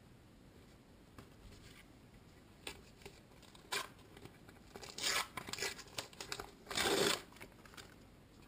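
A small sticker packet being torn open by hand, in a series of short ripping and crinkling sounds, the loudest and longest about seven seconds in.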